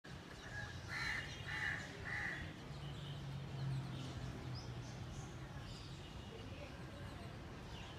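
A crow cawing three times in quick succession about a second in, with smaller birds chirping now and then and a low hum in the background.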